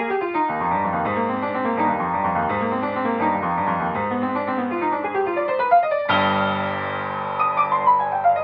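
Upright piano played at a quick tempo: fast running passages of notes rising and falling over a moving bass. About six seconds in it turns to fuller, sustained chords with deeper bass.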